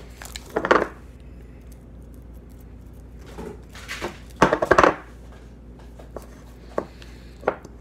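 Hands kneading and squishing homemade slime in a plastic bowl: several short bursts of handling noise, the loudest about halfway through, then a few light clicks near the end.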